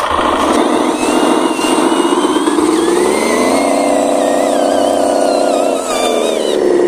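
Engine sound of a radio-controlled miniature dump truck as it pulls through mud. It revs up a little after three seconds, holds steady, and drops back about six seconds in.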